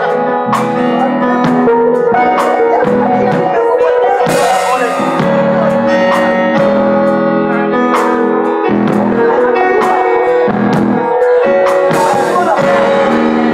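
Live band playing: keyboard and electric guitar over a steady drum beat, with a cymbal crash about four seconds in.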